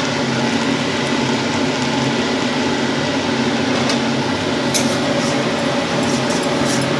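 Masala frying in a kadai on the stove, a steady sizzling hiss with a few light crackles, over an even mechanical hum.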